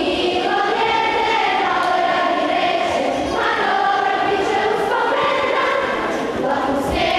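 A school choir of girls singing the school's anthem in three-part harmony, with long held notes.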